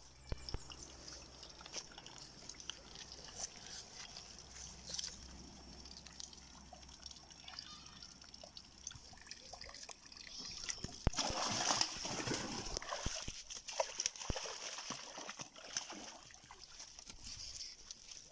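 Water sloshing and splashing in a muddy hole as a bamboo stick works in it, with rustling and scattered clicks. It is loudest for a couple of seconds past the middle.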